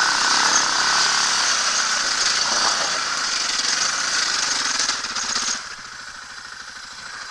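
Dirt bike engine running as the bike rides up a trail, then dropping sharply to a quieter, evenly pulsing idle about five and a half seconds in as the bike comes to a stop.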